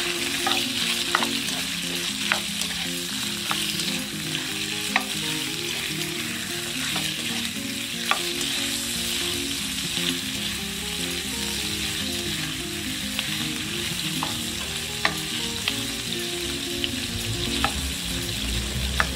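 Pork belly cubes sizzling steadily as they pan-fry in hot oil in a wok. A wooden spatula scrapes and clicks against the pan every second or two as the meat is stirred.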